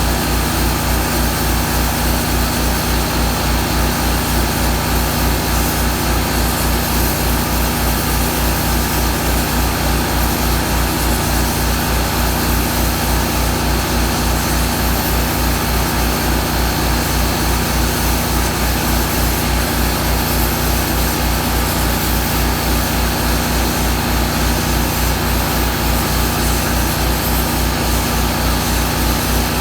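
Small 10-gallon piston air compressor running steadily with an even, regular pulsing.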